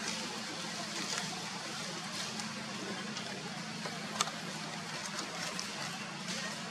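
Steady outdoor background hiss with a low, even hum under it, and scattered faint crackles of dry leaves; one sharp click about four seconds in.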